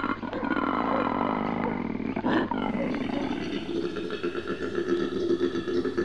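Koala bellowing: a long, rapidly pulsing call that turns steadier and lower-pitched, more like a pulsing grunt, about three seconds in.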